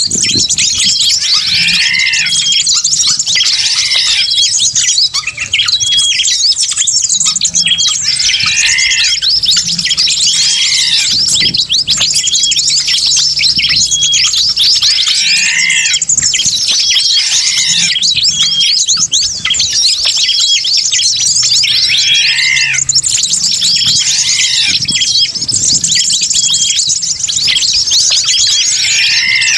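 Bird-lure recording of many small wild birds chirping and twittering all at once in a dense, continuous chorus. A lower, arched call repeats every few seconds over the high chatter.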